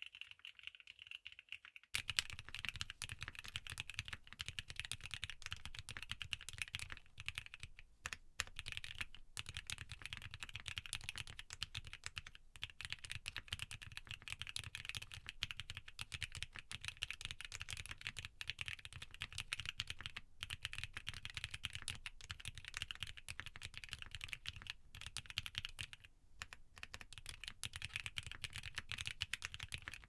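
Continuous fast typing on a Geon Frog Mini keyboard with Kailh Pixel L box switches, an aluminium plate and Poron foam: a dense clatter of keystrokes. About two seconds in, the sound becomes fuller and deeper.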